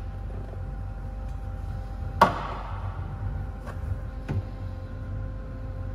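A sharp metallic clank, ringing briefly, about two seconds in, then a couple of lighter metal taps as the welded steel seat frame is handled, over a steady electrical hum.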